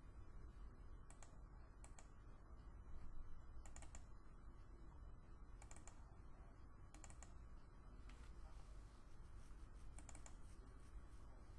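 Faint computer mouse clicks, about six of them a second or more apart, several as quick double-clicks, over a low steady background hum.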